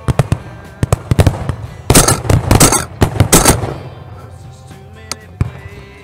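Shotgun fire from several guns, scattered single shots at first, then a rapid, overlapping volley from about two to three and a half seconds in that is the loudest part, and two more shots near the end.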